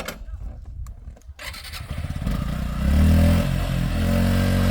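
A few clicks and knocks, then a motorcycle engine catches about two seconds in and runs steadily, loudest just after it catches.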